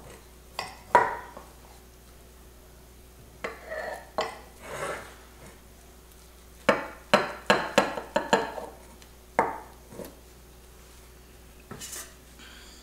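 A chef's knife cutting a slice of baked quiche, clinking and scraping against the pie dish in scattered knocks, with a quick run of knocks about halfway through.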